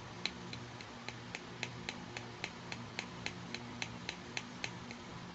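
Small plastic toy makeup-brush stand being tapped with fingernails in an even rhythm: light, sharp plastic clicks, about four a second, stopping shortly before the end, over a steady low hum.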